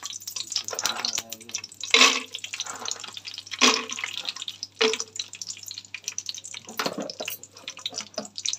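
Hot oil crackling and spitting in a frying pan while tempering dal and seeds, with raw peanuts tipped into the oil. A few louder clatters stand out, about two seconds in and again after three and a half seconds.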